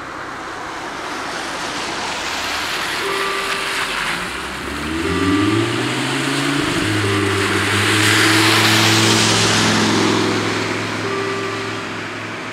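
Cars passing on a wet road, with tyre hiss loudest about eight seconds in and an engine note that rises about halfway through and then holds steady. From about three seconds in, short tones from the level crossing's warning bells repeat every couple of seconds as the crossing starts to close.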